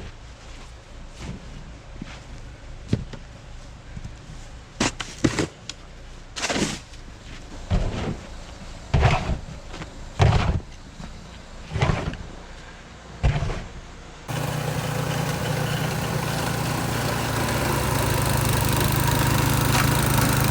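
Tractor engine running, starting suddenly about two-thirds of the way in and growing slowly louder. Before that, a low hum with a sharp knock every second or so.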